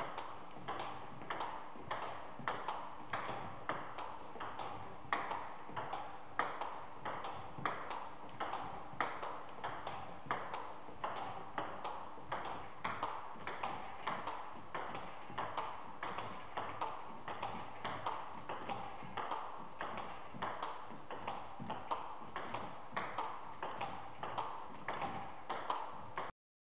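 Table tennis rally of backhand pushes: the ball clicking off the rubber-covered rackets and bouncing on the table in a steady rhythm, a few hits a second. It cuts off abruptly near the end.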